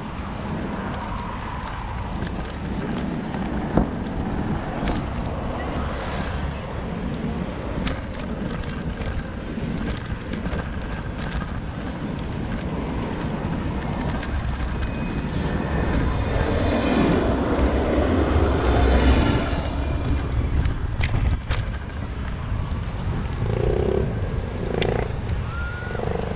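Wind rushing over the microphone of a bicycle-mounted camera as it rides along. The rush swells for a few seconds about two-thirds through as a tram passes close by on the adjacent track.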